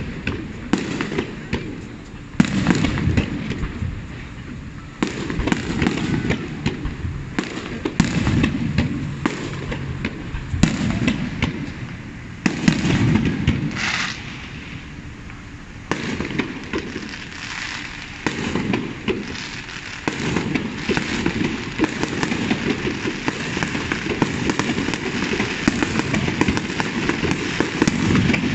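Aerial fireworks shells bursting one after another, a bang every two to three seconds, each followed by crackling. In the last third the crackling turns dense and almost continuous.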